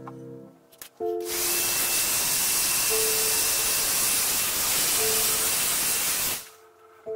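Heat gun blowing hot air over wet epoxy resin: a steady rush of air with a thin high whine. It switches on about a second in and cuts off suddenly about six seconds in.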